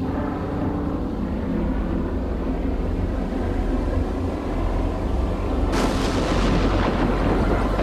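Loud, continuous low rumbling from a drama's soundtrack effects, with a sudden burst of hiss joining it a little under six seconds in.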